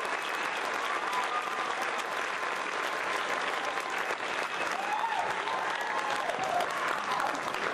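A large crowd applauding steadily, a dense wash of clapping with a few voices calling out over it.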